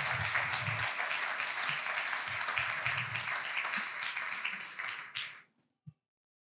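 Church congregation applauding, a dense patter of many hands clapping that thins out and stops about five seconds in.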